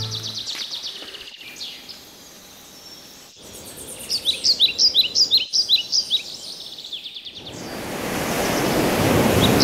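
Tropical birds calling: quick high trills, then a run of sharp, falling chirps repeated several times a second. About seven and a half seconds in, ocean surf rises in and takes over.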